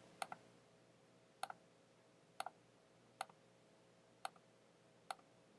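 Faint computer mouse clicks, six of them about a second apart, some as quick double ticks, as tree items in a software help window are expanded.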